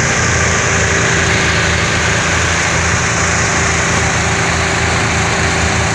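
Homemade paddy thresher machine running with a steady engine drone and a constant hum.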